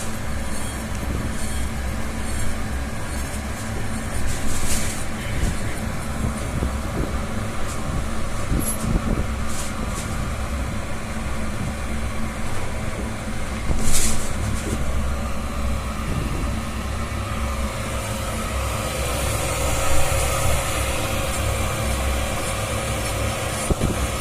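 Dental milling machine running: a steady mechanical hum and whir with faint steady tones. Several brief, louder high-pitched swishes stand out, the strongest about fourteen seconds in.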